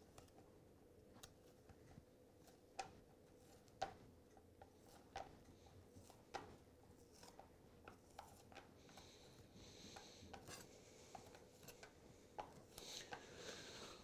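Faint knife work on a wooden cutting board: a knife cutting and scraping lamb breast meat away from the rib bones, with scattered light taps and a few soft rasping strokes in the second half.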